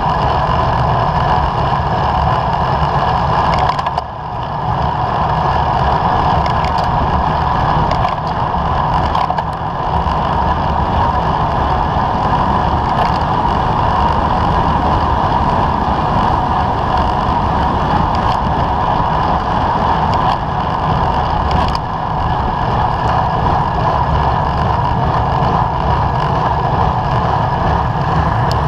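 Steady wind rush and road rumble on the microphone of a bicycle-mounted camera riding on asphalt, dipping briefly about four seconds in.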